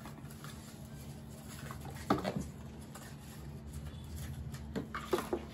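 Faint rustling of the paper wrap and cable as they are handled, in a few short soft bursts about two seconds in and near the end, over a steady low hum.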